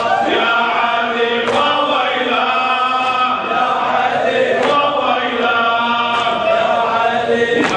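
A man chanting a raddadiya, a Shia Arabic lament, in long melodic lines through a microphone and hall sound system.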